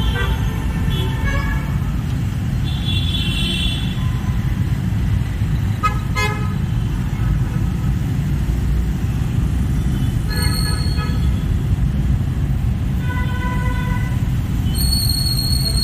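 Heavy road traffic: a steady low rumble of engines, with vehicle horns honking about half a dozen times, short toots of different pitches, one near the end shriller than the rest.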